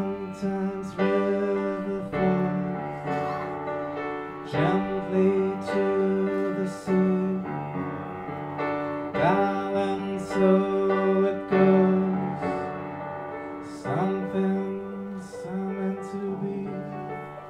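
A man singing into a microphone with upright piano accompaniment, his voice swooping up into each new phrase about every four to five seconds and holding long notes over the piano.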